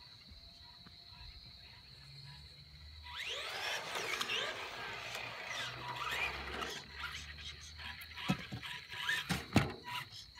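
Electric RC car's motor and gears whining as it drives, the pitch sweeping up and down with the throttle from about three seconds in until about seven seconds. A few sharp knocks follow near the end.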